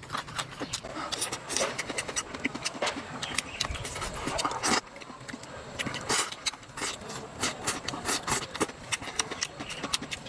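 Close-up eating sounds: chewing, with many short irregular clicks and some rubbing and scraping.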